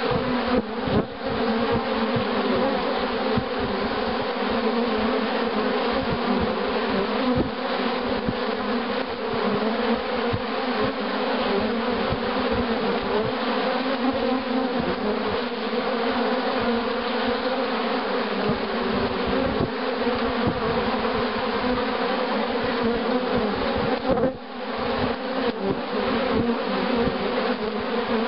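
Dense, steady buzzing of many honeybees flying in front of their hive entrance on orientation flights, young bees learning to fly and where they live. The hum is sprinkled with many short clicks and briefly drops away once, well into the sound.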